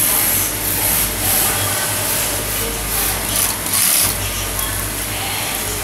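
Industrial high-head wig sewing machine stitching hair wefts onto a wig, running in several short bursts over a steady low hum.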